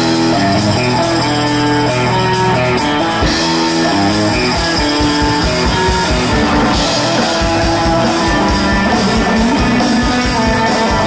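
Rock music with guitar over a steady beat, playing loudly.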